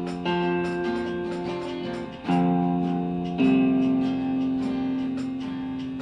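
Guitar strumming chords, each struck chord left to ring and fade: one just after the start, one about two seconds in and one about three and a half seconds in.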